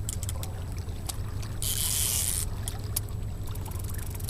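Steady low rumble of wind and water around a boat, with light ticking from a fishing reel being wound in and a brief hiss about two seconds in.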